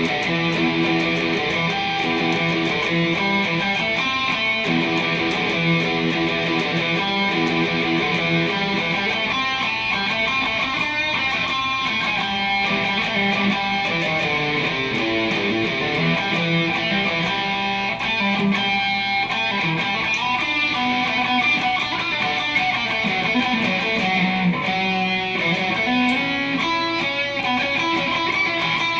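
Telecaster electric guitar played through a Marshall amplifier: a practice riff of picked notes and chords that runs on without a break.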